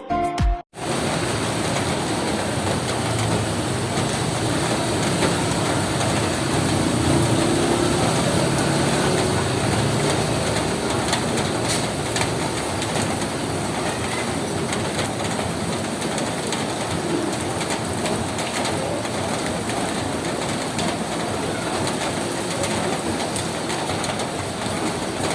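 Steady rain falling on a roof, an even hiss of drops.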